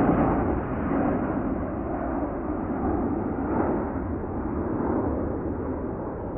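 Four-engine British Airways Boeing 747-400, Rolls-Royce RB211 engines, climbing away overhead: a deep, steady jet rumble, loudest at the start and slowly fading as the plane recedes.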